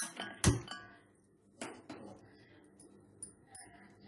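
Stainless steel kadai being handled and set on a stove: three metal clanks in the first two seconds, the loudest about half a second in, then a few faint ticks.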